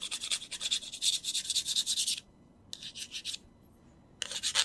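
Edge of a metal ruler scratching the silver coating off a scratch card in quick back-and-forth strokes: a long run of scraping, a short burst about halfway through, and another run starting near the end.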